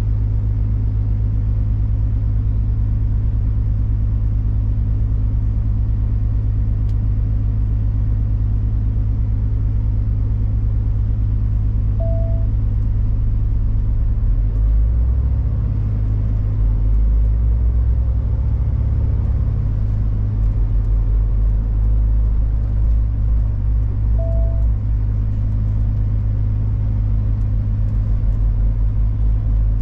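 Big truck's diesel engine running steadily, heard from inside the cab, its low rumble growing heavier about halfway through. A short beep sounds twice, about twelve seconds apart.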